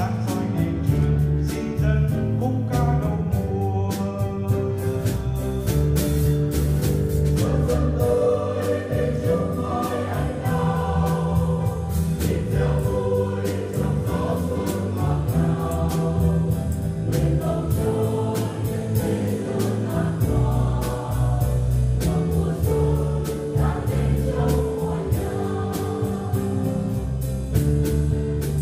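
A church choir singing a Vietnamese hymn, accompanied by a band with a drum kit keeping a steady beat.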